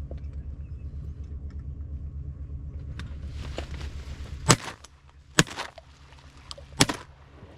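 Three shotgun shots, the first about four and a half seconds in and the others roughly a second and a second and a half after it. Before them a low, steady motor rumble runs underneath and drops away at the first shot.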